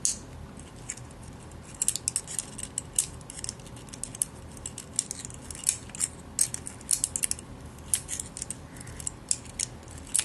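Irregular small metallic clicks and scrapes as the steel parts of a CO2 air pistol's slide are handled, with an Allen wrench used to push a spring into place.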